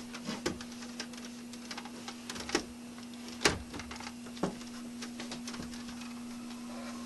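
Scattered sharp clicks and knocks of cables and hardware being handled, over a steady electrical hum.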